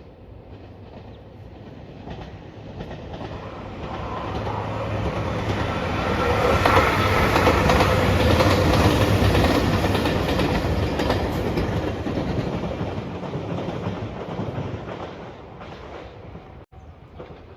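A train passing on the line, growing louder as it approaches, at its loudest for several seconds mid-way, then fading as it draws away.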